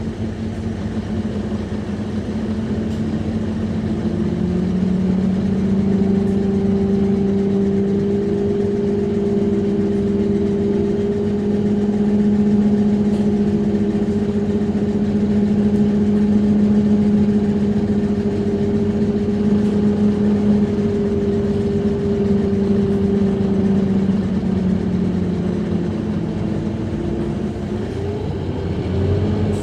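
Scania DC9-16-230 five-cylinder diesel engine of a Scania K230UB bus, with its ZF 6HP504C automatic gearbox in Drive, heard on board while under way. The engine note rises about four seconds in, holds steady, then drops near the end.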